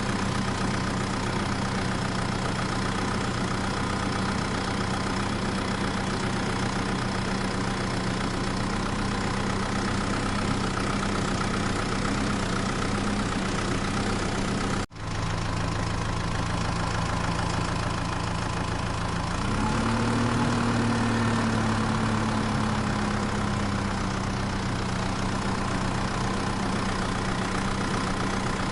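Engine idling steadily, cutting out for an instant about halfway, then briefly revving up a few seconds later and settling back to idle.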